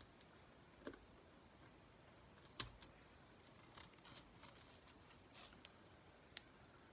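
Near silence, broken by a few faint clicks and light crackles as an adhesive silk-screen stencil is peeled up off the painted board; the sharpest click comes about two and a half seconds in.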